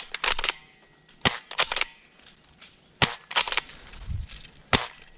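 Airsoft guns firing: sharp snapping shots in quick strings of two or three, repeated about every second and a half.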